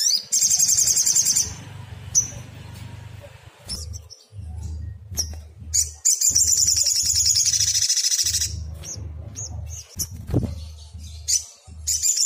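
A sogon (sogok ontong), a sunbird-family songbird, calling: a short, very fast high trill at the start and a long one of about two and a half seconds from about six seconds in, with sharp single chips between. This is the bird's agitated singing, used as a lure call to make other sogon answer. A low hum comes and goes underneath.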